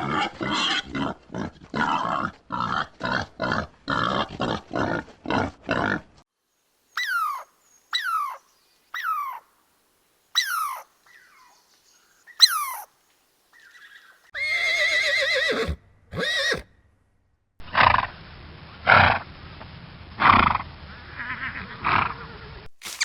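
A run of different farm animals' calls, one clip after another: rapid, even grunting for about six seconds, then five short calls that each drop in pitch, then a longer wavering call, then a series of loud repeated calls over a steady hiss near the end.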